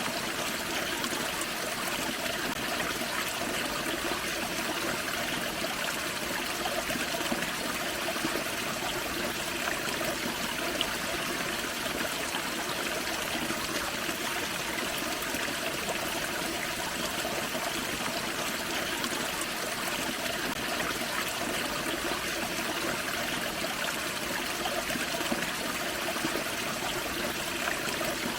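Forest creek flowing over a small waterfall: steady, unbroken splashing and trickling water.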